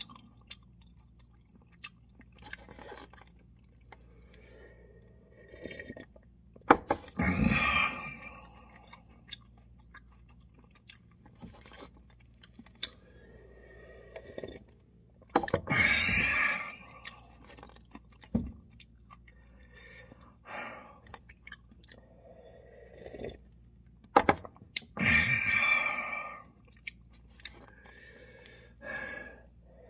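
A person eating cup instant noodles close to the microphone: soft chewing with small wet clicks, broken three times by louder slurps of broth lasting about a second or so each, one of them as the cup is tipped up to drink.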